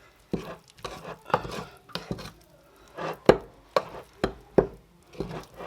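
Utensil stirring thick cake batter in a bowl, knocking against the bowl's sides in irregular strokes with soft scraping between, working out the lumps.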